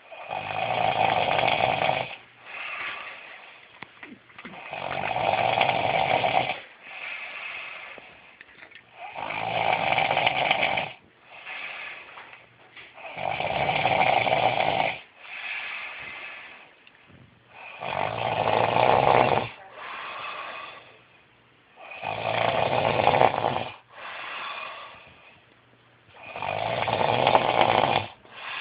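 A sleeping person snoring in a slow, regular rhythm: a loud snore about every four seconds, seven in all, each followed by a shorter, quieter breath sound.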